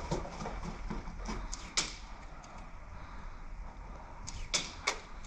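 Airsoft guns firing: a few faint snaps, a sharp loud shot a little under two seconds in, then two more shots in quick succession near the end.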